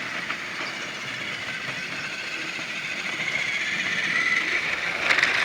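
Battery-powered TrackMaster toy train whirring along plastic track, its small electric motor and gears running steadily and growing louder toward the end, with a few clicks near the end.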